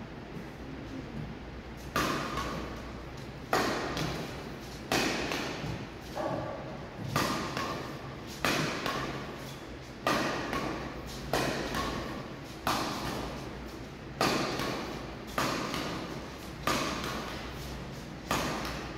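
Badminton rackets striking shuttlecocks in a rapid feeding drill: a sharp hit roughly every second and a half, starting about two seconds in, each echoing briefly in a large hall.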